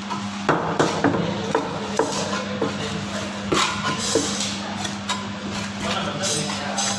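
Heavy cleaver chopping and striking fish on a wooden chopping block: a series of irregular knocks, over a steady low hum.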